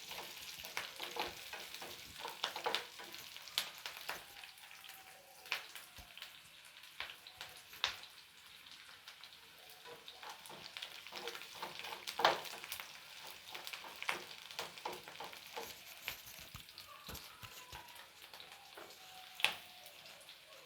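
Garlic, onion and capsicum frying in oil in a pan, with a light steady sizzle. Irregular clicks and scrapes of a spoon stirring against the pan run throughout.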